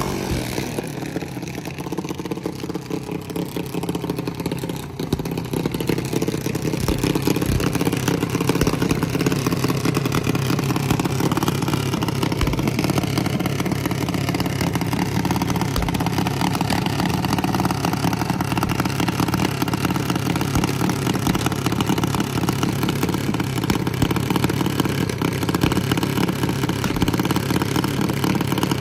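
Junior dragster single-cylinder engine idling steadily, a low, even pulsing drone.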